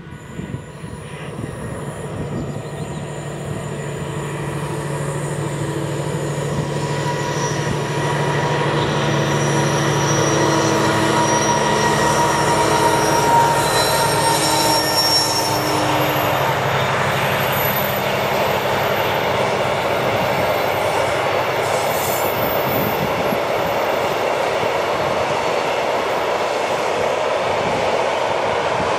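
Diesel-hauled freight train of loaded log wagons passing: the locomotive's engine hum grows louder over the first several seconds, then a steady loud rumble of wagon wheels on the rails. Thin high-pitched squealing tones from the wheels on the curve come and go through the middle.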